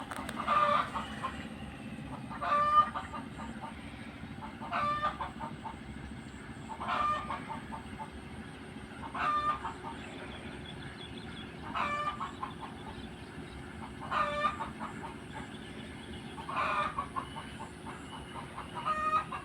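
A bird calling over and over, a short rattling call about every two seconds, nine times in all.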